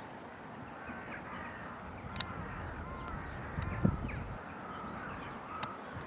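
Birds calling: short chirps scattered throughout, with a few sharp clicks.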